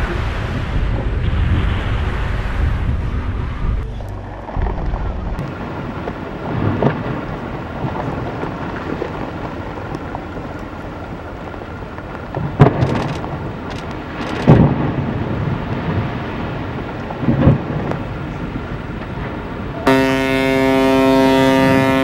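A deep rumbling noise with several heavy, thunder-like booms spread through it. Near the end a steady, horn-like tone sets in and holds for about two seconds.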